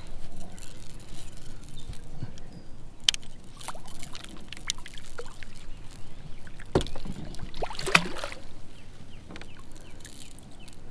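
Water sloshing and splashing beside a kayak as a hooked catfish is brought to the boat, with a few sharp knocks: one about three seconds in and two close together past the middle.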